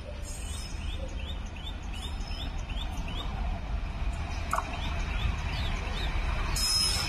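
Electric locomotive-hauled passenger train approaching on the rails, a low rumble that grows steadily louder. A bird chirps over it in a quick series of short calls, about two a second.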